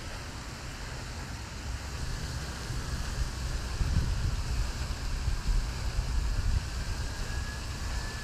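Wind buffeting the microphone: an uneven low rumble that gusts louder in the middle.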